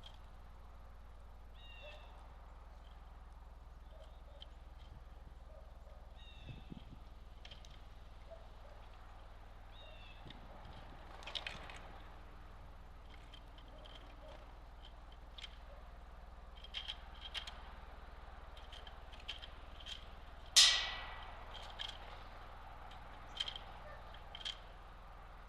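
Small birds at a backyard feeder: scattered short high chirps and chip notes, with one much louder sharp, falling call about twenty seconds in.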